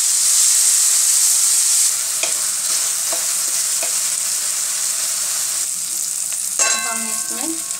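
Chopped tomatoes, onion and spices sizzling in hot oil in a metal kadhai as a plastic spoon stirs them. The sizzle is strongest for the first two seconds, then drops to a lower, steady frying hiss.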